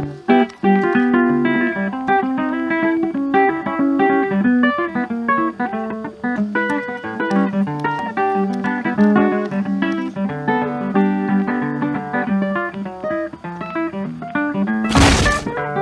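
Background music: a busy plucked guitar tune of quick single notes. A brief burst of noise cuts through near the end.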